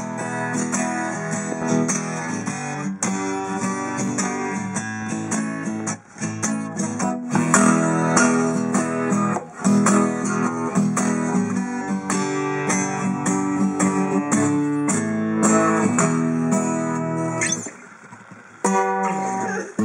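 Sigma DR-7 steel-string dreadnought acoustic guitar strummed and picked through a run of chords, with a short break near the end before the playing resumes.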